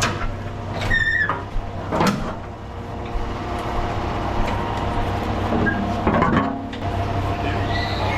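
Concrete mixer truck's diesel engine running steadily at low revs as the truck is manoeuvred, with a brief squeal about a second in and a few clunks and knocks.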